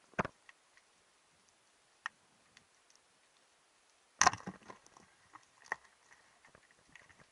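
Underwater: scattered sharp clicks and taps, picked up through the camera housing, with a louder burst of crackling knocks about four seconds in.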